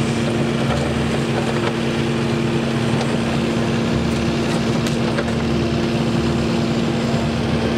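Kubota KX080-4 excavator's diesel engine running steadily with a constant hum as the machine works a log grapple.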